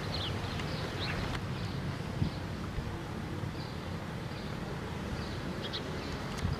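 Birds chirping now and then over a steady low outdoor rumble, with a single faint knock about two seconds in.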